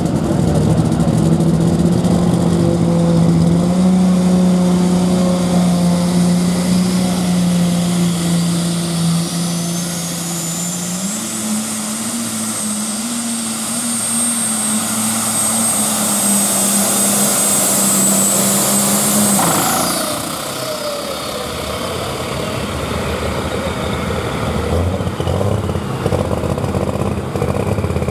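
Turbocharged diesel pulling tractor at full throttle hauling the sled, its engine note stepping up twice and a high turbo whine climbing and then held. About twenty seconds in the throttle is cut, the whine falls away, and the engine drops to low revs.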